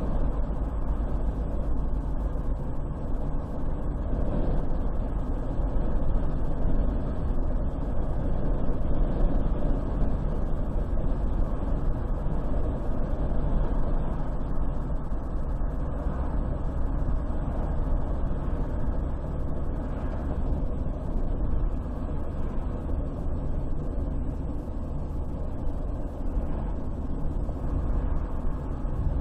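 A car driving at a steady speed on a highway: a continuous low rumble of engine and tyre noise.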